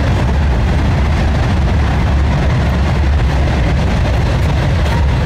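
Sewage vacuum truck's engine running steadily with a low rumble.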